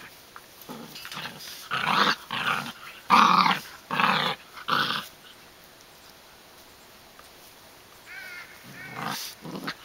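Flat-Coated Retriever puppies growling as they play-fight: a run of short growls in the first half, a pause, then a few more near the end.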